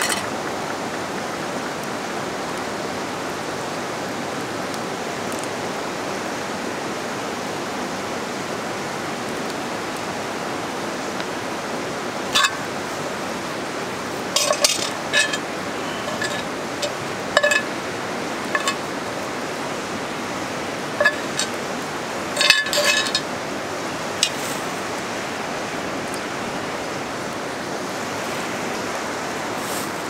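Steady rushing of a river close by. Between about 12 and 25 seconds in come scattered clinks and scrapes of a metal utensil against cast-iron pans, the loudest a cluster a little past 22 seconds.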